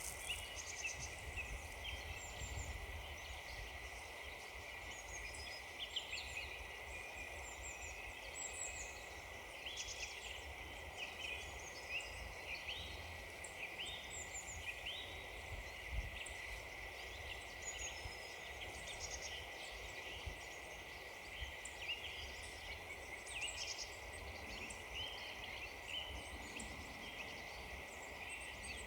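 Woodland birds calling, many short high chirps and quick trills overlapping at a steady pace, over a faint low rumble.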